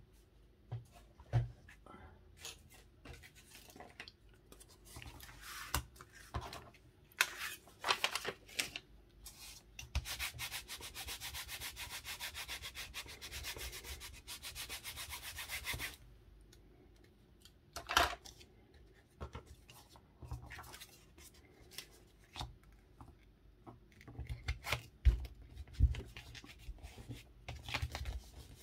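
Paper being handled and worked by hand: scattered light taps and rustles, with about six seconds of fast, even rubbing or scratching on paper starting about a third of the way in.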